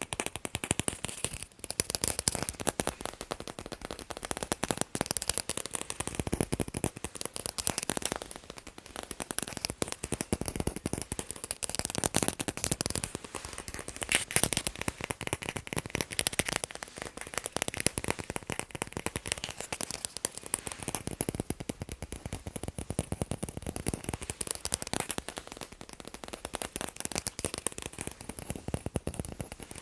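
Fast tapping on balls, a dense run of many quick taps a second that comes in waves of a few seconds each.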